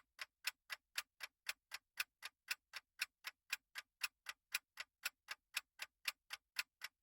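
Countdown-timer ticking sound effect: a steady, even clock tick about four times a second, marking the time to answer a quiz question.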